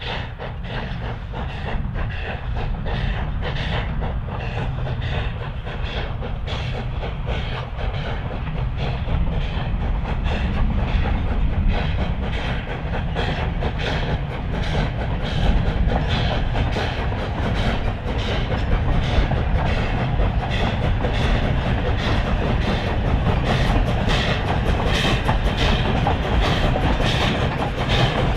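Nevada Northern Railway steam locomotive No. 81 working under load as it pulls two cars past: a rhythmic exhaust chuff from the stack with wheels clicking over the rail joints. It grows gradually louder as the train approaches.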